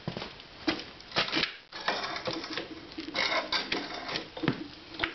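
Irregular metallic clicks and clunks from shifting a 1984 Harley-Davidson FXWG's gearbox into first by foot, with the engine off.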